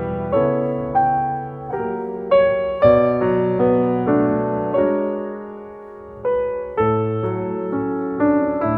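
Background piano music: notes and chords struck about twice a second and left to ring and fade, with one longer held note dying away near the middle.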